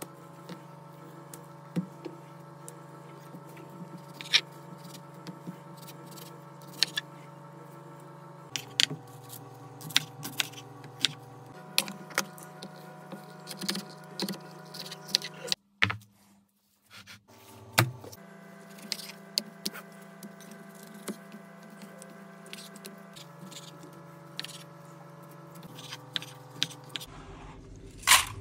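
Knife cutting vegetables on a wooden cutting board: irregular sharp taps and clicks, over a steady hum that changes pitch several times and drops out for a couple of seconds midway.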